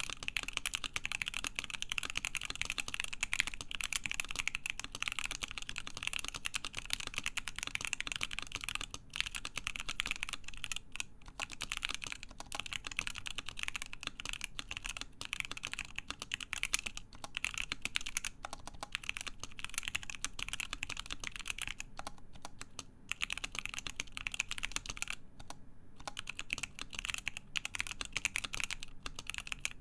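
Continuous fast typing on a CannonKeys Savage65 mechanical keyboard with stock, unlubed JWK Lilac linear switches on a full FR-4 plate and Hammerworks CRP Desko keycaps: a steady stream of key clicks, with a few brief pauses.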